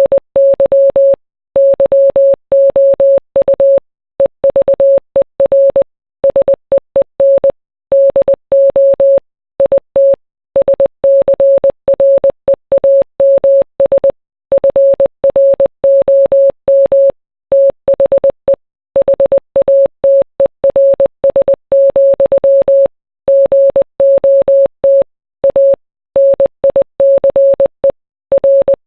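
Morse code: a single mid-pitched beep switched sharply on and off in quick dots and dashes, with short gaps between letters and longer ones between words, spelling out song lyrics.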